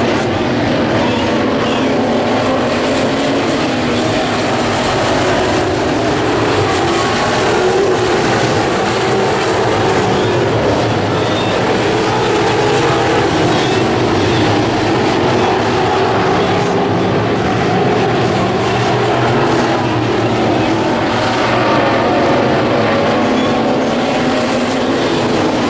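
Dirt-track Sport Modified race cars' V8 engines running on the oval, a loud, steady drone with no breaks.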